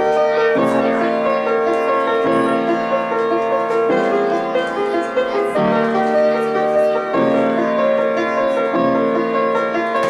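Kawai piano played with both hands: sustained chords with a melody over them, the harmony changing about every one and a half seconds.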